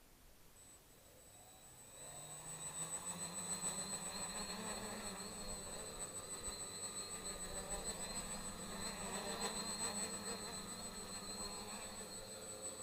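Homemade 3D-printed quadcopter's electric motors and propellers spinning up about two seconds in, rising a little in pitch as it lifts off, then a steady hum while it flies.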